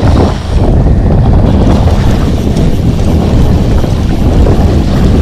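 Steady, loud wind rumble buffeting an action camera's microphone out on the open ocean, over the wash of the sea around a kayak.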